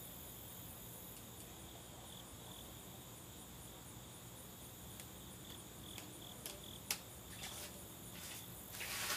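Faint, steady chirping of insects, a high quick pulsing trill. A few sharp clicks come in the last few seconds, the loudest about seven seconds in, with a short rustle just before the end.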